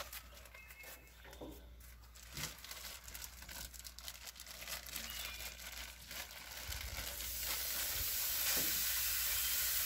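Plastic zip-top bag crinkling as raw ground beef is pushed out of it, then, about seven seconds in, a steady sizzle as the beef lands on a hot flat-top griddle and starts to brown.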